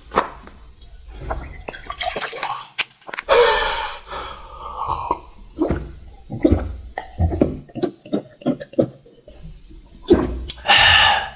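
Close-miked wet mouth sounds of eating and drinking: a series of small smacks and clicks, with two longer slurps, one about three seconds in and one near the end.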